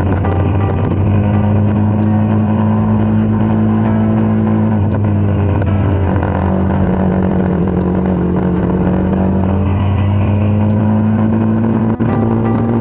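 Kawasaki Dominar 400's single-cylinder engine running steadily under way, its note rising a little early on, easing lower in the middle and rising again later, with a brief break in the sound near the end.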